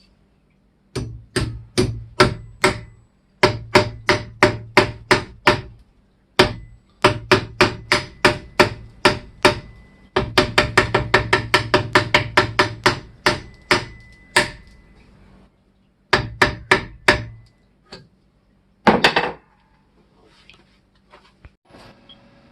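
Hammer striking metal in bursts of sharp blows, each with a brief ring, quickening to about four blows a second midway, then a few last strikes.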